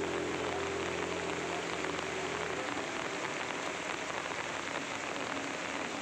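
Heavy rain falling on floodwater, a steady hiss of drops on the water surface. A low, steady engine hum sits under it for the first couple of seconds and stops about two and a half seconds in.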